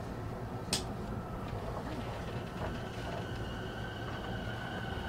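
Interior of a JR 209-series electric commuter train at a station stop: a steady low rumble, a short sharp hiss of air about a second in, then a faint steady high whine from about halfway through as the train gets ready to depart.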